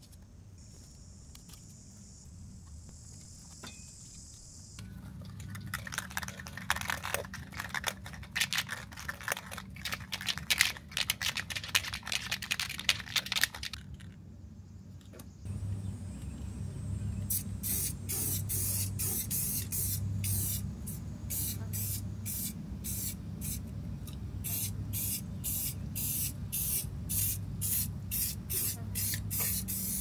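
Aerosol can of spray primer shaken with a rattling clatter for several seconds, then sprayed in short rapid hissing bursts, about two a second, onto a metal water heater door.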